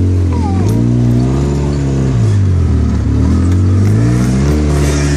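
Polaris side-by-side UTV's engine running under way, its pitch rising and falling with the throttle. It climbs just after the start, dips in the middle, then rises again and holds steady near the end.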